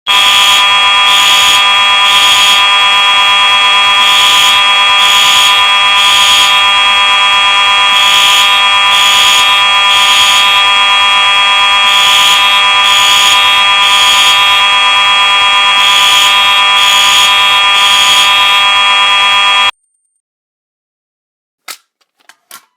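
Fire alarm horns sounding together: a loud, steady buzzing horn, with another signal pulsing over it in short repeated bursts. All of them cut off at once about twenty seconds in, followed by a few faint clicks.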